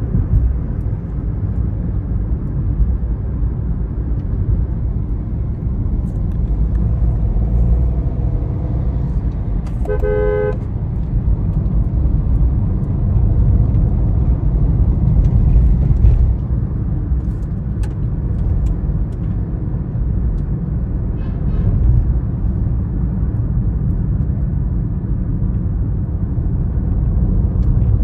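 A loaded dump truck's diesel engine and road noise make a steady, heavy low rumble. About ten seconds in a vehicle horn honks briefly, for about half a second.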